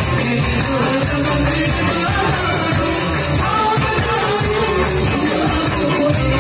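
Merawis, Gayo Islamic devotional singing: a woman and men singing together through microphones over a goblet drum beat.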